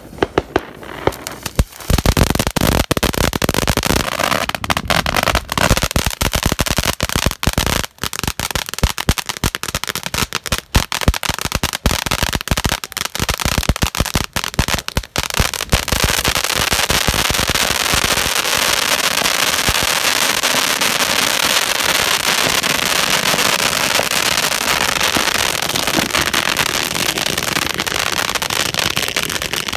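Warrior Teepee cone firework fountain burning. About two seconds in it breaks into dense, loud crackling, and from about sixteen seconds this settles into a steady, even hiss of the spark spray.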